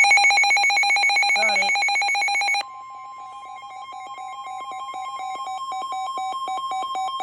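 Emergency alert tones for a severe thunderstorm warning: a loud, rapidly pulsing alert tone. About two and a half seconds in, it drops in level and a steady single-pitch alarm tone joins it, and the two swell louder toward the end.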